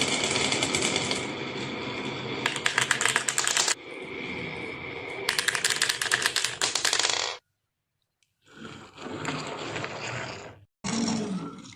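Marbles rolling and clattering down a toy marble run, with bursts of rapid clicking. The sound cuts off suddenly about seven seconds in, then returns in two shorter stretches.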